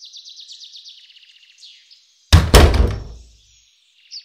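Birds chirping in quick runs of high notes, then about two seconds in a heavy double thud, two hits a quarter second apart, that rings out for about a second.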